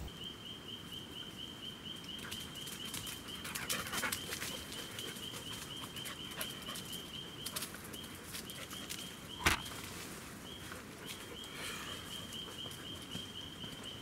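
Outdoor forest ambience: a high, steady, rapidly pulsing call that breaks off a few times, with a couple of short chirping calls and one sharp click about nine and a half seconds in.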